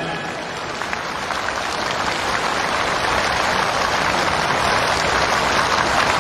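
A large crowd applauding, a dense steady clatter of many hands that slowly swells.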